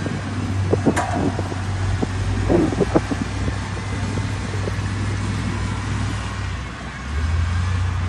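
XCMG motor grader's diesel engine running steadily as the machine pushes soil with its blade. There are a few sharp knocks in the first few seconds, and the engine note dips briefly near the end, then comes back stronger.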